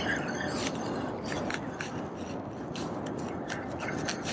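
Spinning reel being wound in, its gears and handle ticking in quick, irregular clicks over a steady background hiss.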